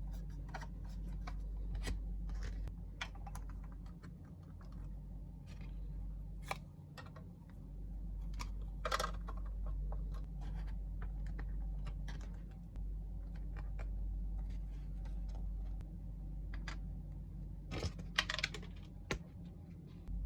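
Hands unpacking a 1:64 scale diorama set: scattered light clicks and taps of plastic pieces, a short rustle of packaging about nine seconds in, and a quick cluster of clicks near the end, over a steady low hum.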